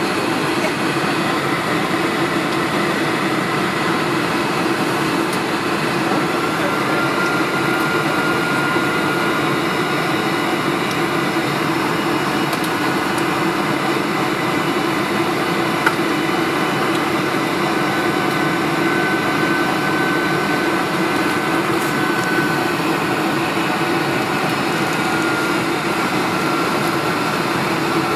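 Steady cabin noise of a Boeing 747's General Electric turbofan engines and the airflow over the airframe, heard inside the passenger cabin during the approach to landing. A faint high whine drifts slightly in pitch a few times, and there is a single small click about halfway through.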